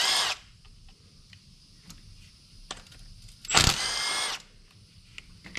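Small cordless power tool whirring in two short bursts, one cutting off just after the start and another lasting under a second about three and a half seconds in, backing out the bolts that hold the engine's wiring-harness housing. Faint clicks of the tool and parts being handled in between.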